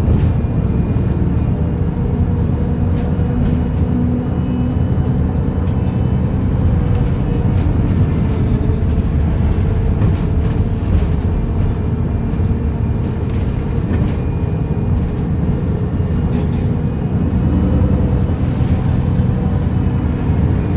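VDL DB300 double-decker bus engine and drivetrain running under way, heard from on board: a steady low grumbling with a hum that shifts slightly in pitch as the engine speed changes, and a few short clicks.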